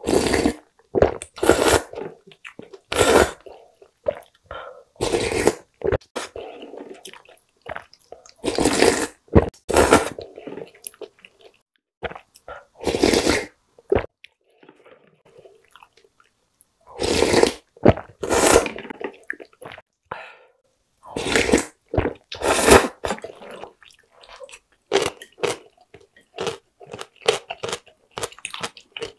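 Close-up eating sounds of seafood ramyeon: loud slurps of noodles and broth from a wooden spoon, repeated with pauses, and wet chewing in between. In the last few seconds the chewing turns into a run of quick, crisp mouth clicks.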